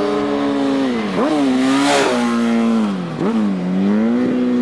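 Sport motorcycle engine running at high revs; its pitch slides down, then twice jumps sharply back up, about a second in and again about three seconds in. There is a brief rush of noise near the middle.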